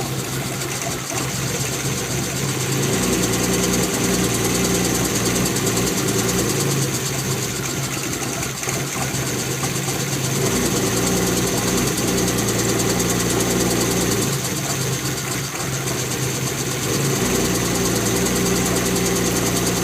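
BMW E36 M3 straight-six idling rough, its tone and level rising and falling every few seconds, which the owner puts down to a bad misfire.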